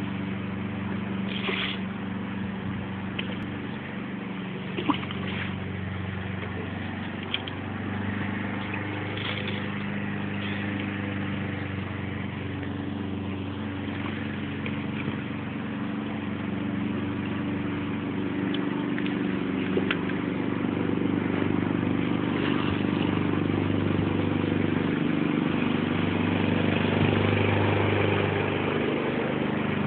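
Steady engine hum, growing somewhat louder in the second half, with a few short knocks.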